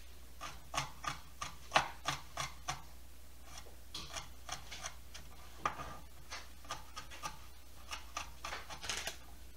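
Kitchen knife chopping and mincing crushed garlic cloves on a plastic cutting board: runs of light taps, about three a second, broken by short pauses.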